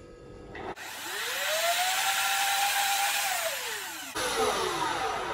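Personal blender grinding cashews into flour. About a second in, the motor whirs up to speed with a rising whine and runs steadily for a couple of seconds. It then winds down, its pitch falling.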